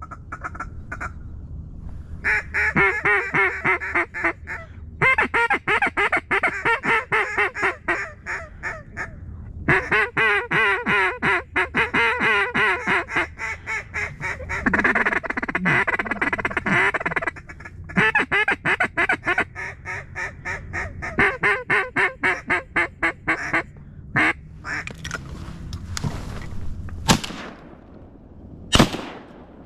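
Mallard duck call blown in long runs of rapid, loud quacks, with short pauses between runs. Near the end come a couple of sharp shotgun bangs.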